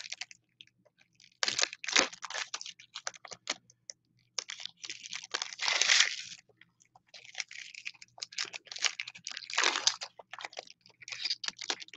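Foil wrappers of Donruss Optic trading-card packs crinkling and tearing as the packs are ripped open by hand. The sound comes in irregular rustling bursts with short pauses. The longest and loudest rip comes about six seconds in, and another comes near ten seconds.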